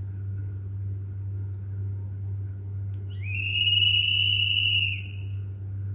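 A steady low hum throughout. About three seconds in, a single high whistling tone glides up briefly, holds steady for nearly two seconds, then stops.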